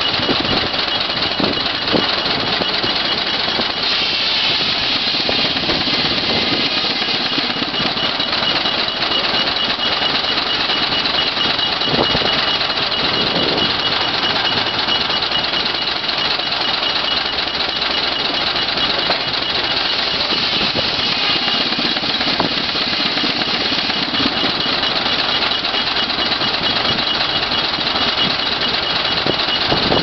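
1911 Avery 40 hp steam traction engine running steadily, belted up and working under load on a sawmill, with a steady high-pitched tone above the machinery noise.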